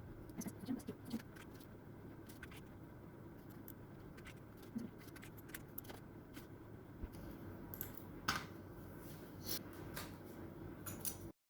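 Irregular clicks of keys being pressed on a Vortex Series GT-6 mechanical keyboard, a dozen or so scattered presses over a steady low hum. The sound cuts off abruptly near the end.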